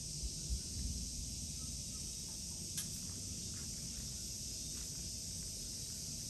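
Steady outdoor background: an even high hiss over a low rumble, with one sharp click about three seconds in and a few faint ticks after it.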